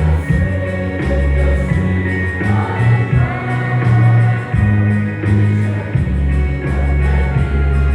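A group singing a gospel song together over instrumental accompaniment with long held bass notes.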